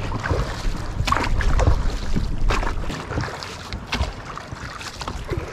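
Oars dipping and splashing as an inflatable dinghy is rowed, in uneven strokes, with wind noise on the microphone.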